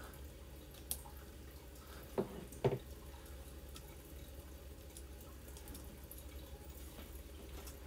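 A few faint, light clicks and taps, three in the first three seconds, from hands working the breech of a Crosman 3622 air rifle, over a low steady hum.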